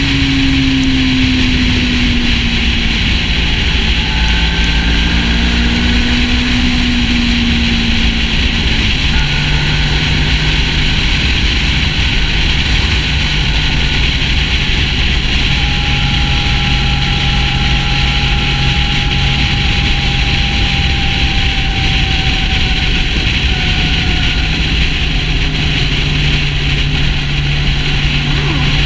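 Sport motorcycle cruising at highway speed: steady wind rush and road noise over the engine's low running note, which shifts slightly in pitch now and then.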